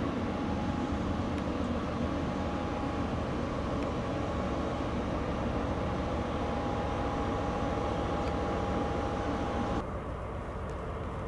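Siemens ER20 (DB Class 223) diesel locomotive running as it hauls a passenger train slowly into the station: a steady engine drone with a steady high whine over it. About ten seconds in, the sound suddenly drops to a quieter, duller rumble.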